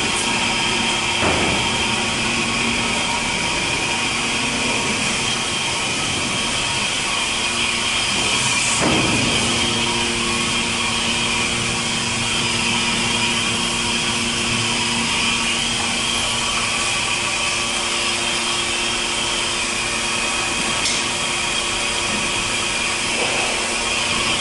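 Steady rushing hiss of compressed air from a supplied-air (pressure) respirator line. About nine seconds in, a low steady hum joins it.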